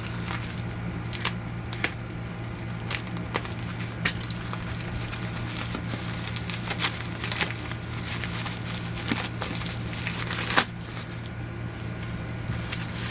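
Packaging being unwrapped by hand: crinkling and crackling with scattered small clicks and knocks, one sharper knock late on, over a steady low hum.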